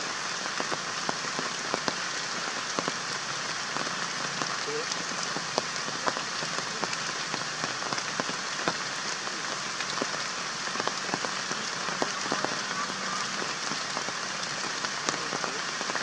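Steady outdoor hiss with many small ticks scattered through it, with no voices.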